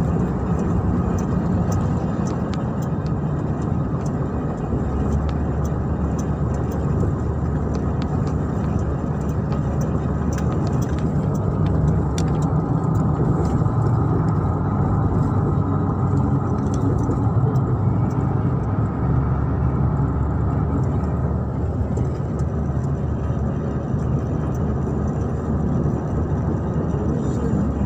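Steady engine and tyre road noise heard inside the cabin of a moving car, an even rumble with no distinct events.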